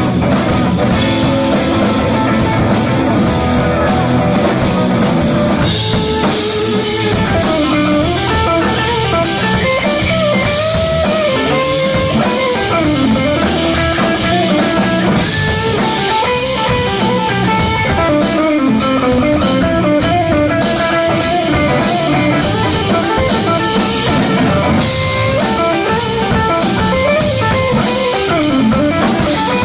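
Blues band playing live in an instrumental break: electric guitar over a drum kit. From about six seconds in, the guitar plays a lead line full of bent, sliding notes.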